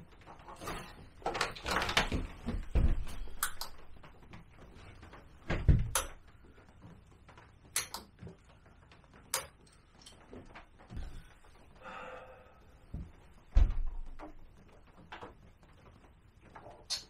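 Scattered clicks, knocks and a few heavier thumps of parts being handled and moved, with a brief scraping rustle about twelve seconds in.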